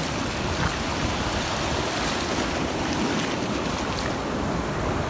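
Steady wash of ocean surf on the beach, with wind buffeting the microphone.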